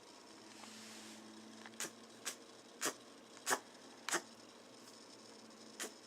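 Netherland dwarf rabbit sneezing repeatedly: six short, sharp sneezes in quick succession, beginning about two seconds in, with a longer gap before the last one.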